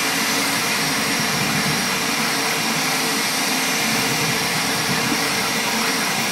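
Creality K1C 3D printer printing at high speed. Its fans make a steady rushing noise, and under it the motors whir in constantly shifting pitches as the print head darts back and forth.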